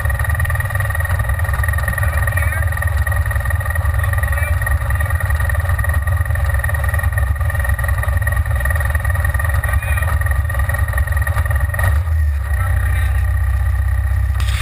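Side-by-side UTV engine running steadily, a low rumble heard from inside the cab.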